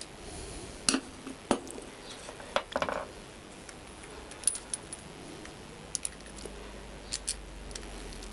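Scattered small metallic clicks and clinks from the clamp bolts being handled and threaded by hand into a motorcycle clutch master cylinder clamp on the handlebar. The clicks are irregular, with a quick cluster about three seconds in.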